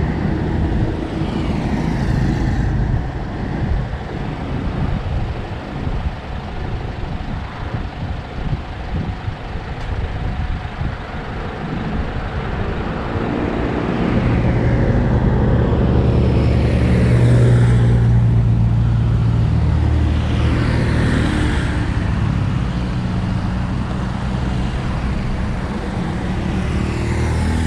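Road traffic passing by: several vehicles sweep past with falling tyre-and-engine sound, and a heavier vehicle's engine hum swells to the loudest point about midway before fading.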